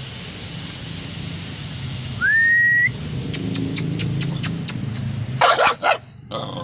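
A person whistles one short note that rises and then holds, about two seconds in, followed by a quick run of about eight clicks. Near the end a caged dog barks aggressively in two loud, harsh bursts, teeth bared, over a steady low hum.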